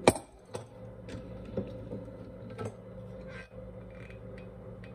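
Handling noise from a glass coffee carafe: one sharp knock right at the start, then a few lighter clicks and taps as it is moved about, over a faint steady hum.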